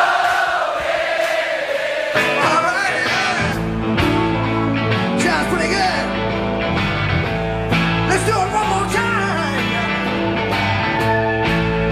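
Live rock band playing: electric guitars and singing, with the bass and drums coming in about two to three seconds in and then driving a steady beat.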